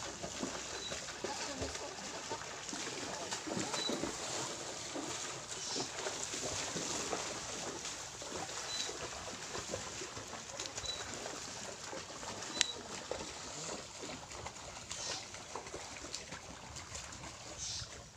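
Shallow seawater splashing and lapping as people wade through it at a rocky shore: a steady wash of noise full of small splashes. Short high chirps come every second or two, and a single sharp click sounds about twelve seconds in.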